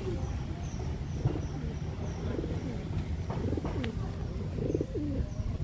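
Doves cooing, a few low wavering coos in the second half. A faint high chirp repeats about twice a second over a low background rumble.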